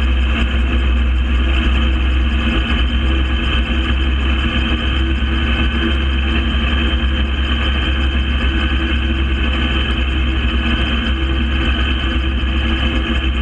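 Gyrocopter engine running at a steady, unchanging pitch, with a strong low rumble underneath.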